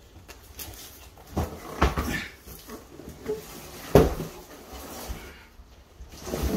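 Thumps and scuffs of an empty cardboard mattress box being tipped and set down on a wooden floor, several knocks with the loudest about four seconds in.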